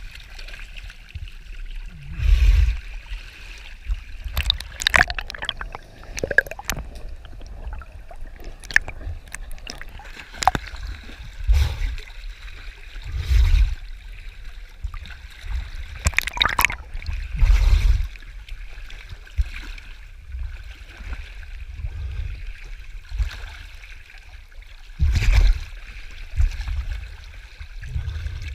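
Water sloshing and gurgling along a sailing yacht's hull while it is under way in choppy sea, with irregular low thumps every couple of seconds.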